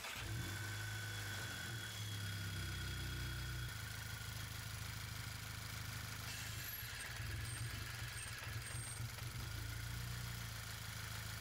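VW Golf MK6 GTI 2.0 turbocharged four-cylinder engine idling, steady at first. A few seconds in, the idle turns rough and uneven as the dipstick is pulled with the engine running, a stumble that tests the new PCV diaphragm. It steadies again near the end.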